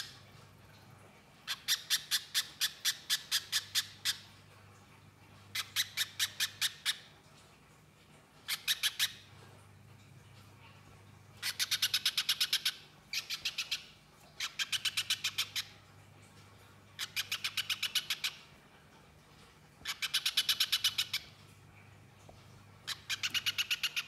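Little spiderhunter calling: bursts of rapid, sharp, evenly repeated chattering notes, about five to ten a second, each burst lasting one to two seconds with short pauses between them.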